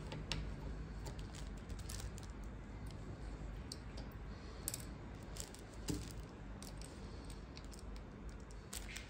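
Small screwdriver working a tiny screw out of a metal lamp-arm joint: scattered light metallic clicks and scrapes.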